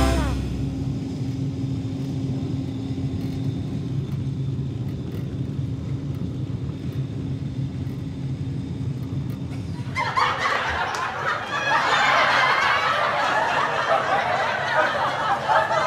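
Steady low rumble of a high-speed TGV train heard from inside the carriage, with a faint steady hum. About ten seconds in the hum stops and a louder, irregular rustling-like sound takes over.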